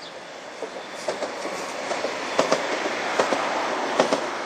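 Articulated Belgian coast tram (Kusttram) passing close by on its rails. A rolling rumble builds as it draws alongside, with sharp wheel clicks on the track, several in quick pairs.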